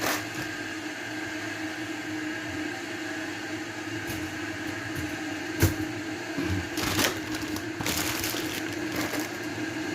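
A steady appliance hum, with a sharp click about halfway through and brief clattering handling noises a little later.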